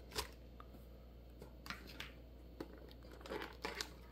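Faint crinkling of plastic packaging handled by hand, in a few short, scattered rustles and light ticks that come more often in the second half.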